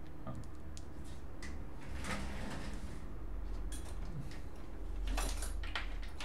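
Small clicks, knocks and short scrapes of hands handling parts and cables on a workbench, over a steady low electrical hum.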